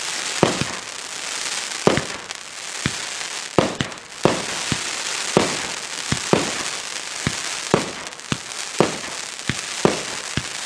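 Pyro Demon 'Zombie Slayer' 500 g firework cake firing: sharp shot bursts about once a second, each breaking into willow and crackle effects, over a continuous crackling hiss.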